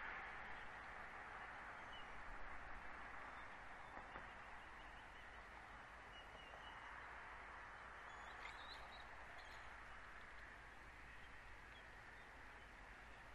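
Faint outdoor ambience: a steady hiss with a few faint, short, distant bird chirps, a small cluster of them a little past the middle.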